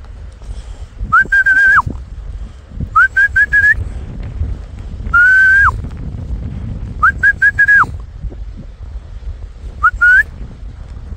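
A person whistling loudly in five bursts of high whistled notes, each note rising quickly and then held, some drawn out singly and others in quick runs of three or four. Wind rumbles on the microphone underneath.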